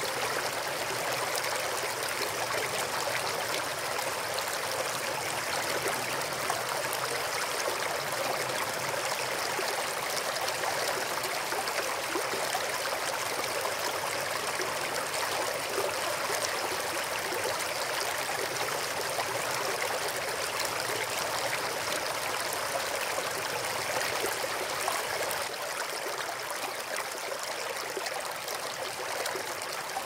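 A shallow river flowing fast over riffles, making a steady, even rush of water with no single splash standing out. It grows slightly softer over the last few seconds.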